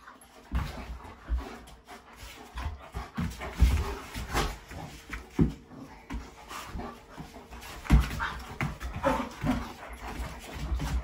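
Dogs play-fighting: scuffling with irregular thumps of paws and bodies on the floor, the loudest about four and eight seconds in, mixed with short growls and breathing.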